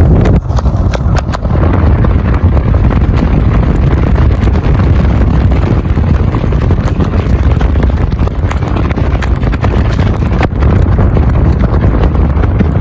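Strong wind buffeting the microphone: a loud, steady rumble with constant crackling.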